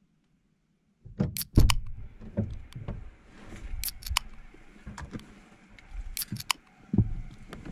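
Car door unlatching and opening, then a run of clicks, knocks and rustling as a bag is put inside the car and someone gets in, with a heavier thump about seven seconds in.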